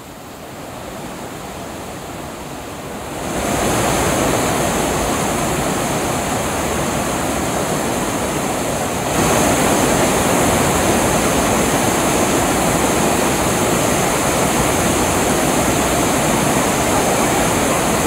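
Fast mountain river rapids rushing over boulders: a steady, loud whitewater rush that grows louder about three seconds in and again about nine seconds in.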